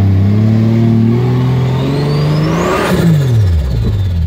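Turbocharged Nissan TB42 straight-six petrol engine working hard under load, revs climbing slowly with a rising turbo whistle. About three seconds in there is a brief rush of noise, the revs drop sharply and the turbo whistle winds down.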